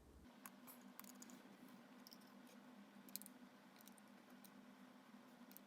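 Near silence: faint scattered clicks and light handling taps over a faint steady hum.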